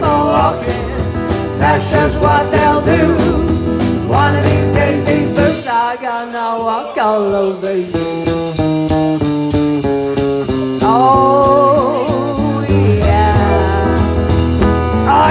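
Live band music: a woman singing into a microphone over drums and guitar. The low end drops out briefly about six seconds in, then the full band comes back in.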